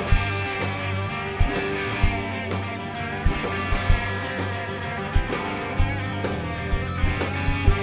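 Rock band playing an instrumental passage without vocals: electric guitar over a drum kit, with regular drum hits.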